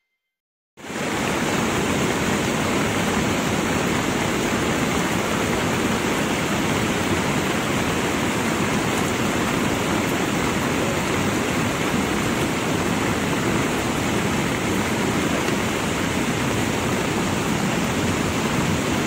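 Steady rushing noise of heavy rain and rain-swollen river water, starting abruptly just under a second in and holding even throughout.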